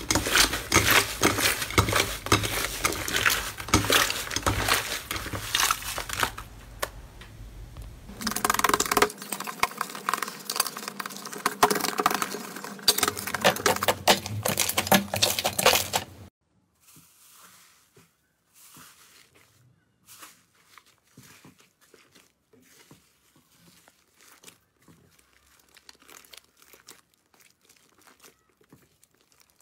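Slime being kneaded and poked by hand: dense, loud crackling and popping clicks, with a brief lull in the middle. About halfway through it drops suddenly to faint, scattered sticky clicks.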